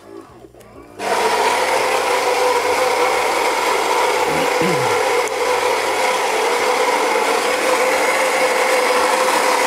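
Gaggia Magenta Milk bean-to-cup machine's built-in ceramic burr grinder grinding a full-strength dose of beans for a cappuccino. It starts about a second in and runs as a loud, steady, rasping hum.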